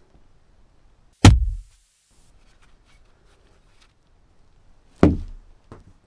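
Foley kung fu impacts: a wooden club striking a padded block, giving two heavy thuds with a deep low boom that dies away quickly. One comes about a second in, the other near the end, followed by a lighter knock.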